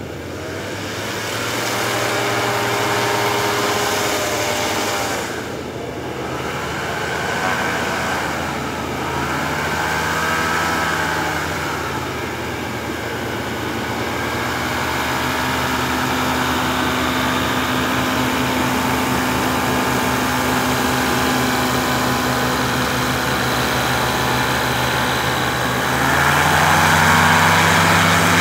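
Merlin ultralight aircraft's engine and propeller running as it taxis on snow, the revs rising and falling a few times, with the loudest burst of throttle near the end.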